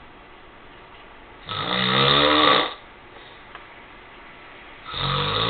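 A man snoring in his sleep: two long snores, each lasting about a second, the first about a second and a half in and the second starting near the end.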